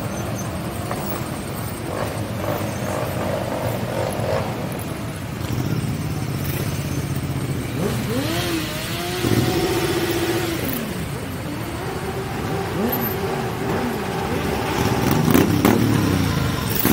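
A parade of motorcycles riding past, engines running. From about eight seconds in, several bikes rev, their engine notes rising and falling one after another.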